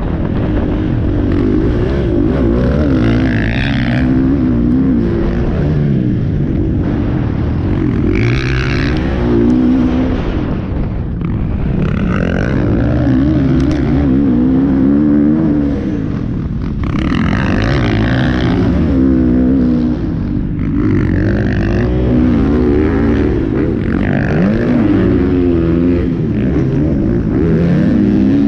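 Dirt bike engine heard on board, its revs repeatedly rising and falling every few seconds as the rider works the throttle around a motocross track, with a steady rush of noise underneath.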